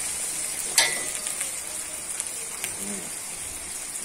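Oil sizzling steadily as greens stir-fry in an aluminium kadai, with a perforated metal spatula scraping through them. There is one sharp clank of the spatula against the pan about a second in, and a lighter one later.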